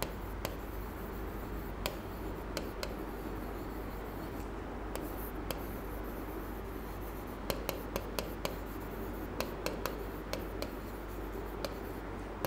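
Stylus writing on the glass of an interactive display board: irregular sharp taps and short scratches as letters are formed, over a steady low hum.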